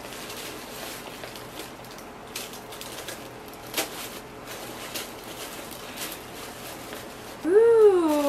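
Paper and tissue paper rustling and crinkling as a wrapped gift box is carefully opened by hand, with one sharp click about four seconds in. Near the end a woman's voice comes in with a drawn-out excited "ooh" that rises, falls and holds.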